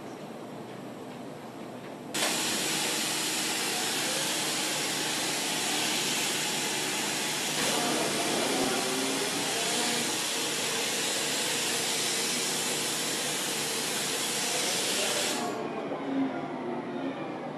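Okuma VTR-350A vertical turning lathe at work: a steady hiss starts abruptly about two seconds in and cuts off near the end, over a low machine hum.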